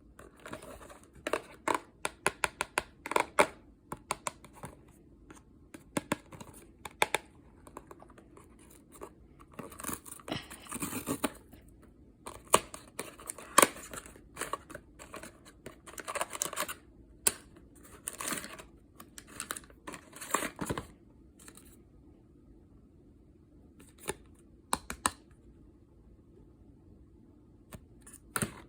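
Pop Mart blind box being opened by hand: a quick run of taps and clicks on the box in the first few seconds, then repeated bursts of packaging tearing and crinkling, with a few scattered clicks near the end.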